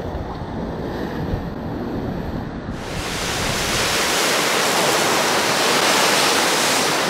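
Ocean surf breaking on rocks, a rushing wash of water and spray, with wind buffeting the microphone. About two and a half seconds in the sound changes abruptly to a louder, hissing wash that swells for a few seconds.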